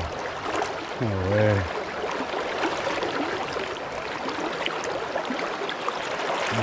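Steady rush of flowing river water, with a man's short wordless low hum about a second in.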